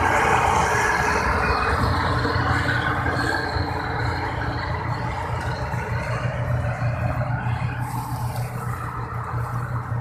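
New Holland 8070 combine harvester running steadily as it harvests wheat, its engine and threshing machinery making a continuous low drone that slowly grows fainter.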